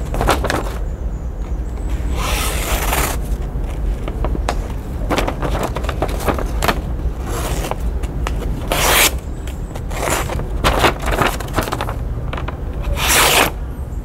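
A knife edge slicing through a sheet of printer paper in a series of short hissing cuts, several over a few seconds, as a test of the blade's sharpness.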